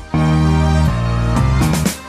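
Background music: sustained notes over a strong bass line, with a few sliding notes near the end.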